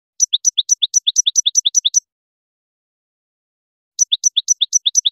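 European goldfinch singing a rapid, even trill of a repeated two-note figure, a high falling note and then a lower rising one, about five times a second. It comes in two bursts of about two seconds each, the second starting about four seconds in.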